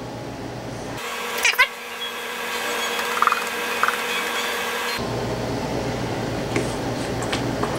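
Steady machine-like hum with a couple of sharp metallic clinks about one and a half seconds in, as a stainless steel mixing bowl knocks against a steel cake pan while batter is poured.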